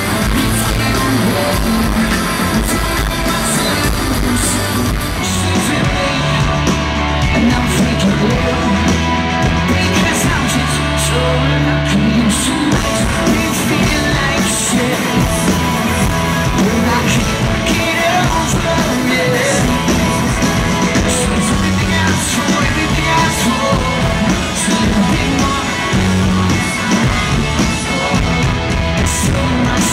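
Live rock band playing loud through a concert PA, with electric guitars, drums and bass under a male singer singing into a handheld microphone, heard from the crowd.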